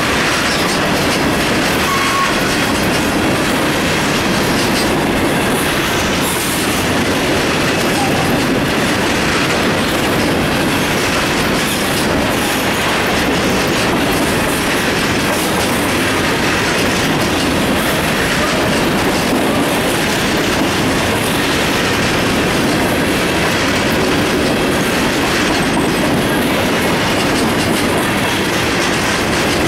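Covered hopper cars of a long freight grain train rolling steadily past at close range, the wheels clicking over the rail joints.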